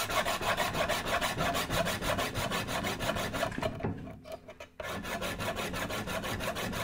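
Coarse 100-grit stone of a Wicked Edge guided sharpener scrubbed in rapid back-and-forth strokes along a chef's knife edge, a steady rasping. The strokes stop for about a second near the middle, then resume.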